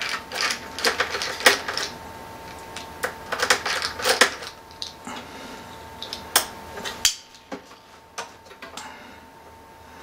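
Small screwdriver working screws out of the sheet-metal case of a Synology DS1815+ NAS: irregular metallic clicks and scrapes, thinning out after about seven seconds.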